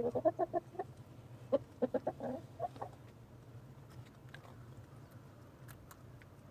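Chicken clucking in two quick runs of short notes in the first three seconds, then a few faint ticks over a steady low hum.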